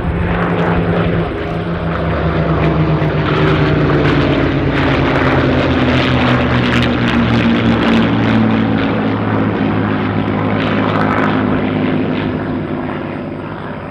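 Piston engines of World War II propeller fighters (Spitfire, P-51 Mustang and Corsair) flying past, a steady drone that grows louder toward the middle and then eases off, its pitch falling gradually as the aircraft pass.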